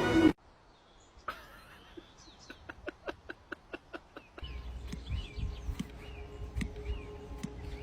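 A run of sharp clicks or taps, about three to four a second, then short bird chirps over a low rumble.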